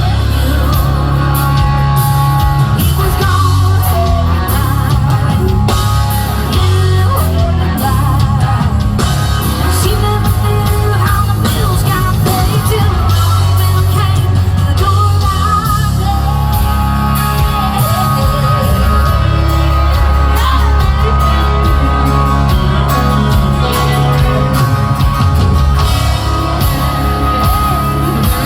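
Live rock band playing a song loudly, with a woman singing lead over electric guitar and steady bass.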